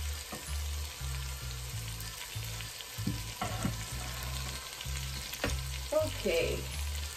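Masala and freshly poured goat paya broth sizzling and bubbling in a pot on the stove, the spices having been fried until the oil separated. A few sharp knocks come about three seconds in and again later, as a metal pot and strainer bowl are set down.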